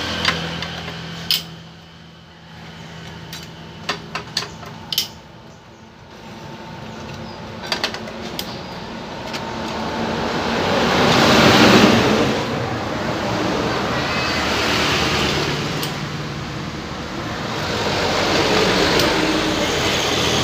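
Sharp metal clicks and clinks of hand tools working the many bolts of a scooter's CVT cover during the first several seconds. Then a broad rushing mechanical noise that swells up twice, loudest near the middle.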